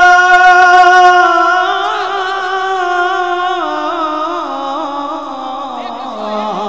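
A man singing a devotional manqabat into a microphone: a long held high note that then winds down in a slow, ornamented descending run, ending much lower near the end.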